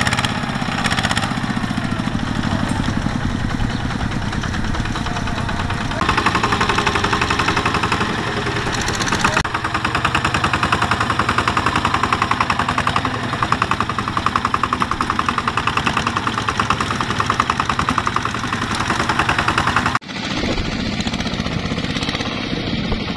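Kubota ZT155 single-cylinder diesel of a two-wheel walking tractor, running under load as it pulls a trailer stacked with rice sacks. It makes a fast, steady chugging. About twenty seconds in the sound cuts off for an instant and picks up again.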